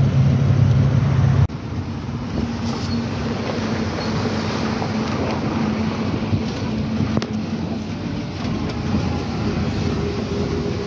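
Lorry engine and road noise heard from inside the cab while driving. A deep engine drone changes abruptly about one and a half seconds in to a steadier rumble with a faint hum.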